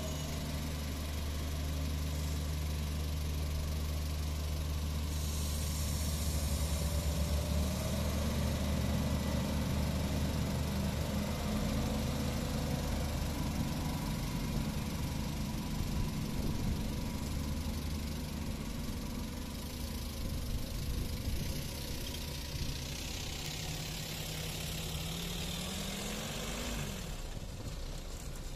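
MAN diesel railcar's engine running at idle, then working harder as the train pulls away and accelerates. Near the end the engine note climbs steadily in pitch before falling back.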